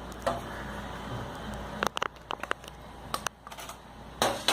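Kitchen handling noises: a few light clicks and knocks of utensils and containers about two seconds in and again near three seconds, then a short rustling noise near the end.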